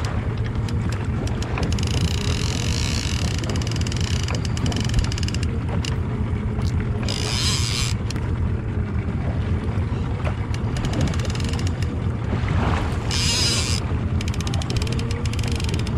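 Boat motor running steadily under wind noise on the microphone. Two short bursts of hiss come about seven and thirteen seconds in.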